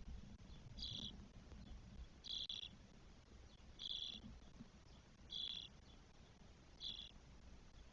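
Short, high bird calls repeated about every second and a half, five times: spotless starling nestlings calling from the nest.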